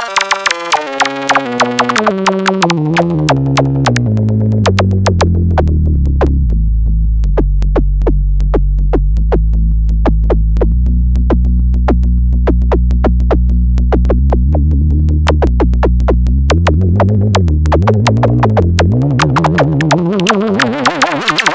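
Electronic synthesizer tone under photoresistor (light) control, gliding steadily down in pitch over the first few seconds to a deep low drone. The drone holds, then wobbles up and down in pitch and rises again near the end, over a steady run of sharp clicks.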